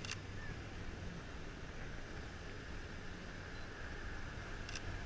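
Two sharp camera shutter clicks from a Sony A6000, one at the start and one near the end, over steady wind noise.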